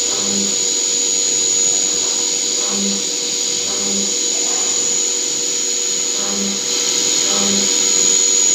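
CNC machine running steadily, with a constant high whine over a hiss and a short low hum that comes and goes every second or two.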